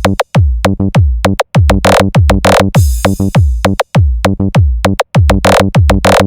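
Loud hard-kick battlemix dance music: rapid pounding kick drums whose booming tone drops in pitch on each hit, under a pitched electronic riff. Sharp snare or clap hits come in pairs about 2 s in and again near the end.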